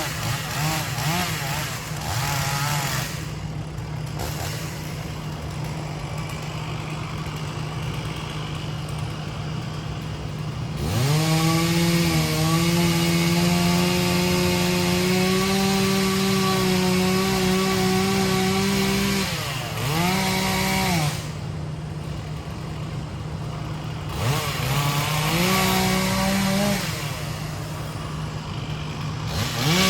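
Chainsaw throttled up to full speed in several bursts, the longest about eight seconds, dropping back to a lower speed between them, over a steady low engine drone.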